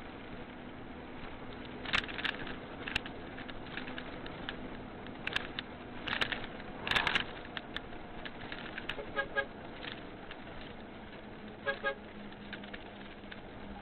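Inside a semi-truck cab, the engine hums steadily under scattered clicks and rattles. Two short bursts of quick pitched beeps come about nine and twelve seconds in.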